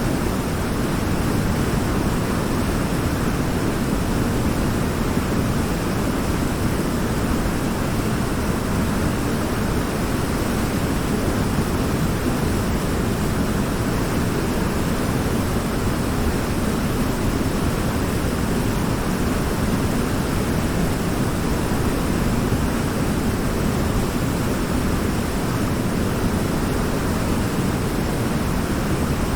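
Waterfall: water falling and rushing in a steady, unbroken roar, fullest in the low end.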